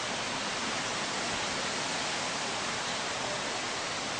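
Steady, even hiss with no distinct events and no change in level.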